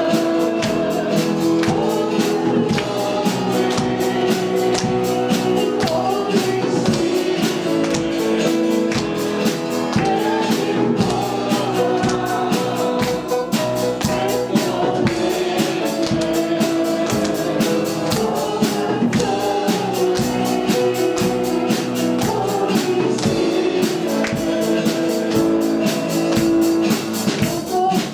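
Worship band music with singing, carried by a steady beat of shaken percussion such as tambourine.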